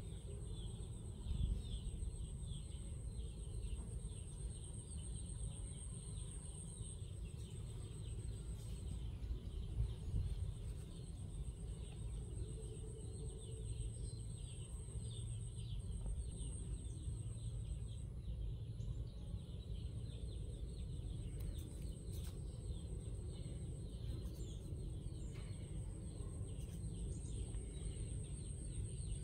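Outdoor rural ambience: many small bird chirps, a steady high-pitched buzz that breaks off a few times, and a low rumble underneath.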